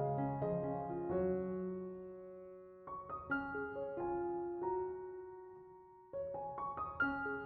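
Soft background piano music: slow chords and melody notes struck every few seconds and left to ring and fade.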